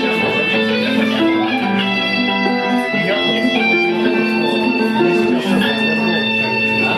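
Guitar music: a melodic electric guitar line over a steady accompaniment.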